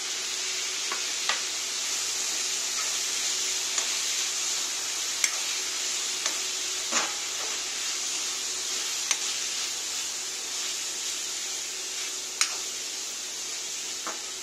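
Steel spoon stirring chickpeas and grated coconut in a kadai, clinking sharply against the pan every second or two over a steady sizzle.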